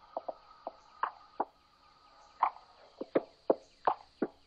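Intro sound effects: about a dozen short, irregular blips, each dropping quickly in pitch, over a faint steady high tone.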